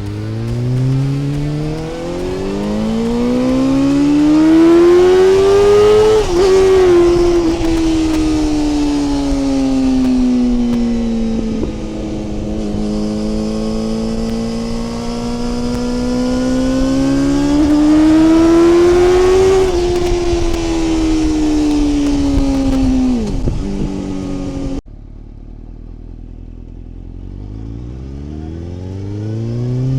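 1998 Suzuki GSX-R750 SRAD's inline-four engine under way, its pitch climbing for several seconds, dropping back, then rising and falling a second time. About 25 seconds in the sound cuts to a quieter run where the engine builds up again.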